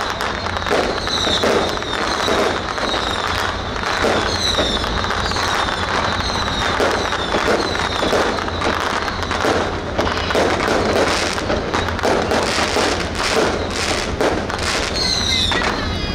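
Strings of firecrackers going off in a continuous, dense crackle, with many short falling whistles over it and a steady low rumble underneath.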